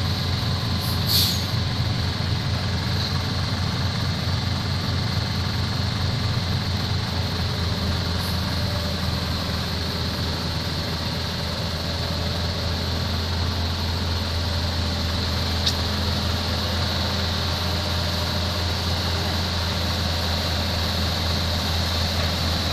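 Hino medium-duty flatbed truck's diesel engine idling steadily. There is a brief hiss about a second in.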